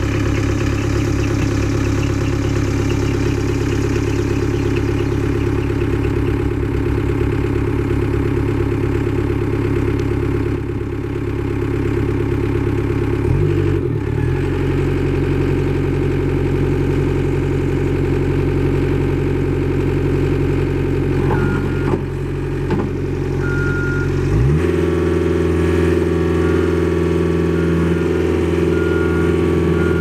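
Gehl RT175 compact track loader's diesel engine idling steadily. It dips and picks back up about halfway through, then rises to a higher steady speed about three quarters of the way in, with a few short high beeps after that.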